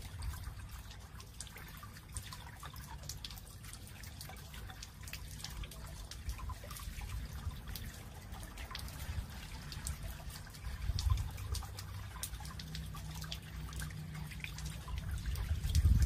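Water from a boulder fountain trickling and dripping over wet stones into a shallow pool, steady with many small splashes. A low rumble swells now and then, most strongly about two thirds of the way through and near the end.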